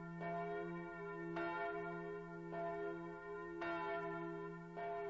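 Bell tones struck five times about a second apart, each ringing on, over a steady low drone.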